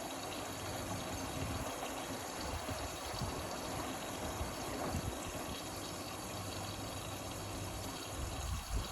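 Indesit Innex XWA 81252 front-loading washing machine running, with a steady rush of water inside it and a couple of low thumps near the end.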